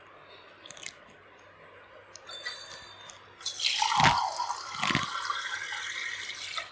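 Water running and splashing for about three seconds, starting about halfway through and cutting off suddenly, with two dull knocks partway through: cold water for rinsing freshly strained paneer curds so the sourness is washed out.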